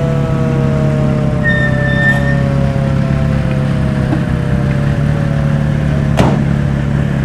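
A siren winding down in a slow, falling tone over the steady running of old military vehicle engines driving past. A brief high tone sounds about two seconds in, and a sharp click near the end.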